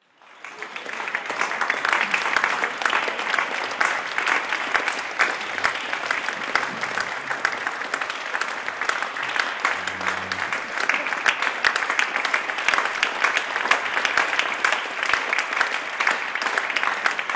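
Audience applauding, many hands clapping steadily; the applause swells up over the first second or so.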